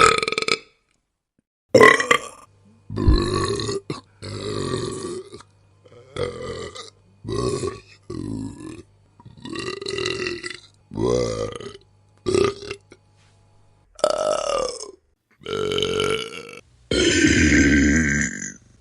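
A string of about fourteen separate human burps, one after another with short silent gaps between them, some brief and some long and drawn out, the longest nearly two seconds near the end.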